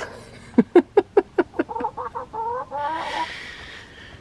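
Domestic hen cackling: a fast run of loud clucks, about five a second, that climbs into higher, drawn-out squawks and ends in one longer call. It is the cackle that hens who aren't laying keep up while another hen lays.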